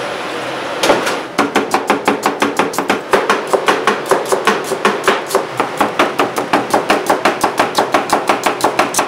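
Kitchen knife chopping ginger fast on a wooden cutting board: rapid, even knife strikes, about five or six a second, beginning about a second in.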